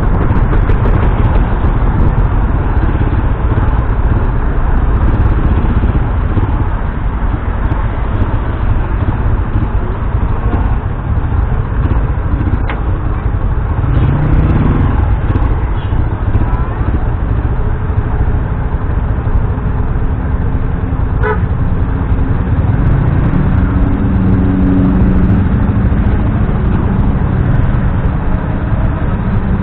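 Motorcycle riding through heavy city traffic: steady rumble of wind on the microphone with engine and traffic noise. Vehicle horns honk a few times from about the middle on.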